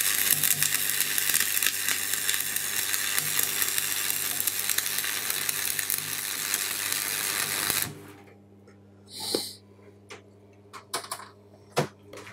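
Stick-welding arc crackling and hissing steadily for about eight seconds, the transformer buzzbox welder running on DC through a bridge rectifier with the electrode negative; the arc then breaks off suddenly. A steady low hum remains after it, with a few light clicks and taps near the end.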